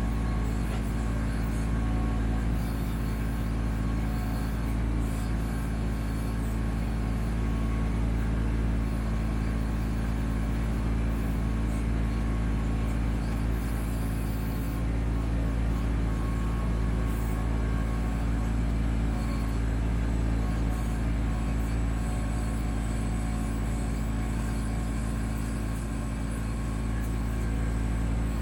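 Kubota B2650 tractor's three-cylinder diesel engine running steadily while it powers the BH77 backhoe for digging.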